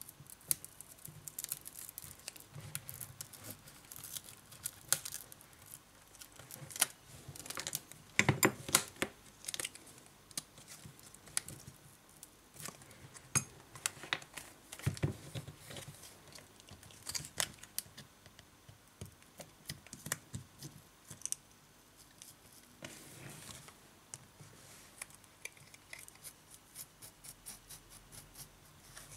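Irregular small clicks, taps and scrapes of a thin plastic pick and a metal pick tool working along the edge of a tablet's display glass to pry the display module free, with a cluster of louder clicks about a third of the way in.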